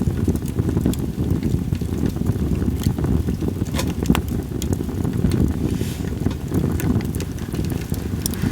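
Campfire of split sawtooth oak (kunugi) logs crackling, with scattered sharp pops, over a steady low rumble of wind on the microphone.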